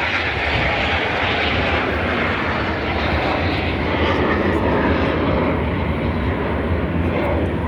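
Display aircraft flying past, its engine noise loud and steady, easing slightly near the end.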